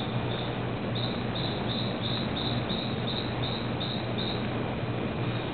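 A calling animal in the forest gives a rhythmic run of short, high chirps, about three a second, that stops near the end, over a steady low hum and hiss.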